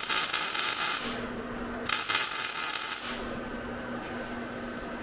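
Two bursts of harsh crackling hiss from a shop tool working on the car. The first ends about a second in; the second runs for about a second near the middle. A faint steady hum sounds between them.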